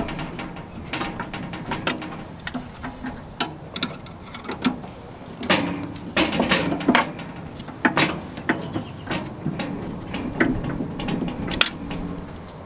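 Phillips screwdriver tightening the screws of the pellet grill's hopper handle, with irregular clicks and taps from the screws and the handled parts.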